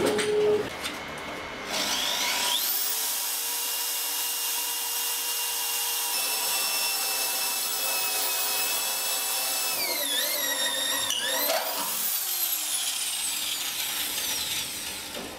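Electric drill with a step drill bit cutting a hole through a square steel tube. After a few clicks, the motor spins up with a rising whine and runs steadily. Around the tenth second its pitch dips and recovers under load, and near the end it winds down.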